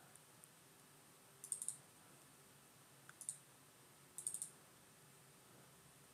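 Computer mouse button clicks used to open folders in a file dialog: a quick group of clicks about one and a half seconds in, a single click a little after three seconds, and another quick group just after four seconds, over faint room hum.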